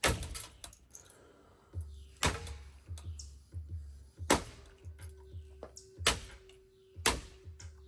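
Hampton Bay Farmington ceiling fan being smashed: five hard impact strikes, one every second or two, over low pulsing background music.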